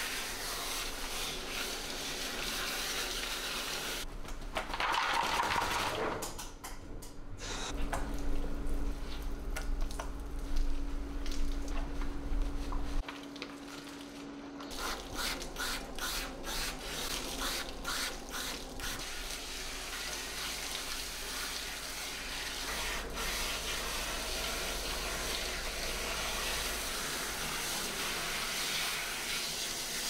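Water spraying from a hose sprayer with a shampoo chamber into a large dog's thick, wet, sudsy coat, splashing and running off into the bathing tub. There is a louder burst of spray about five seconds in.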